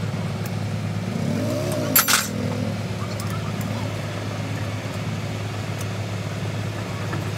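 Steady low hum of an engine running. About two seconds in comes a brief sharp metallic clank.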